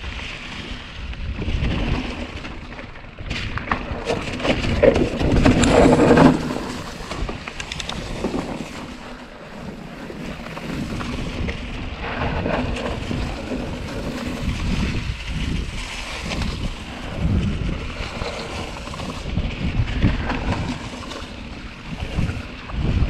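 Wind buffeting the microphone of a camera riding on a mountain bike, over the rolling noise of knobby tyres on dry fallen bamboo leaves and dirt. The noise swells and is loudest around five to six seconds in.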